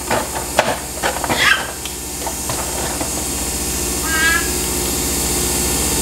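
Nespresso capsule machine brewing, a steady pump hum and hiss as coffee streams into the mug. A few short knocks come in the first second and a half, and a brief high-pitched wavering call sounds about four seconds in.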